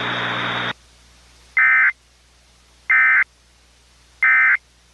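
Three short bursts of Emergency Alert System SAME data tones, the digital end-of-message code that closes the alert, each about a third of a second long and evenly spaced. Before them, a steady hiss with a low hum cuts off under a second in.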